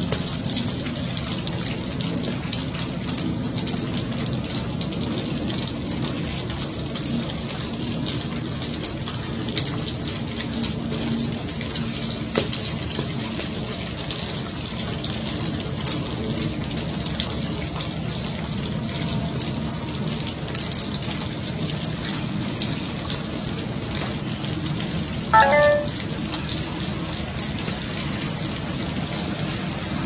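Steady hiss and fine patter of wet precipitation falling on leaves. About 25 seconds in, one short pitched call rises briefly above it.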